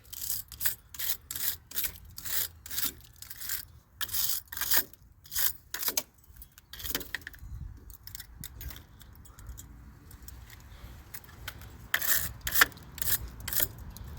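A brush scrubbing a lawnmower's battery terminals and cable in quick strokes, about two a second, pausing about seven seconds in and starting again near the end: cleaning the battery connections.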